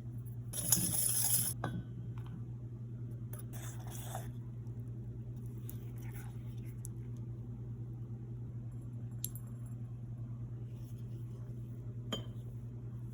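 Kitchenware clinking and scraping: a couple of clattering bursts of dishes or utensils in the first few seconds, then a few single clinks, over a steady low hum.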